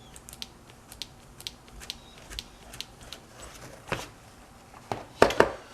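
Scattered small clicks and taps of hands handling tools and the phone on a workbench, with a louder cluster of knocks about five seconds in.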